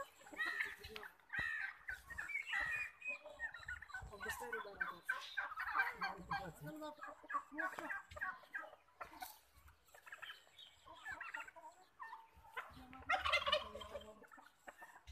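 Chickens clucking and calling, many short overlapping calls in quick rattling runs, with a louder burst near the end.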